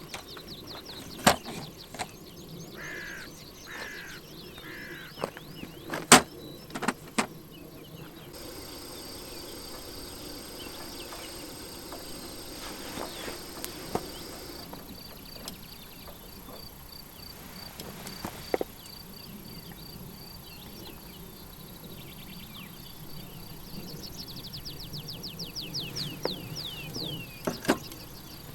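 Insects chirping in a fast, even pulse, with birds calling in quick falling trills and short repeated calls. A few sharp clicks stand out, the loudest about six seconds in.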